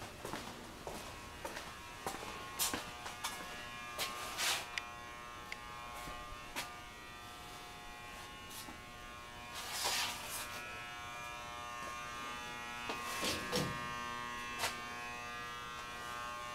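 A steady electrical buzz with several high overtones, broken by scattered knocks.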